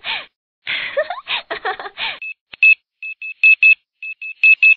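A parrot talking in a raspy voice for about a second and a half, then about ten short, high beeps at one pitch in an uneven run, like phone keypad tones.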